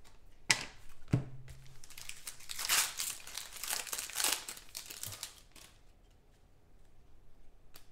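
Foil trading-card pack wrapper being torn open and crinkled in the hands, densest in the middle, after a couple of sharp clicks in the first second or so.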